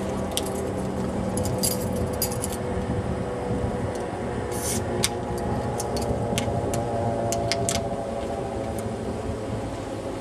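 Keys jangling and clicking against a 12 oz aluminium beer can as a hole is punched in its side to shotgun it. The clicks are irregular and short, over a steady low hum.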